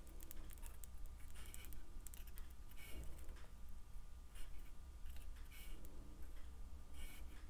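Faint clicks and light scrapes of metal tweezers picking small chips of hard solder off a metal plate and setting them on the joint of a copper ring, over a low steady hum.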